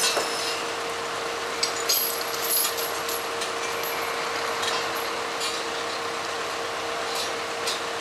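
A truck's engine running steadily with a constant hum, and a few sharp metallic clinks and knocks scattered through it as palletised loads are handled on the flatbed.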